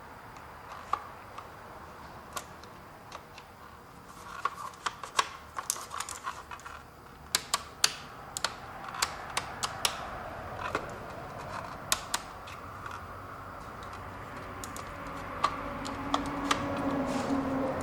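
Irregular sharp clicks and taps of small plastic parts being handled and fitted together, as the headlight switch is worked into its housing; the clicks come thickest in the middle stretch.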